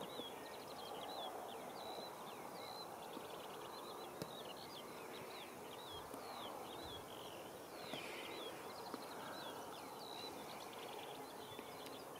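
Birds chirping: many short, high calls that slide downward, repeating throughout, over a steady background hiss with a faint fast ticking.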